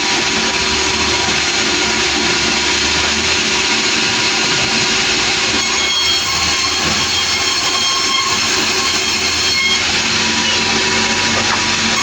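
Sawmill machinery running steadily, with the saw cutting timber: a loud, continuous mechanical noise with a high steady whine.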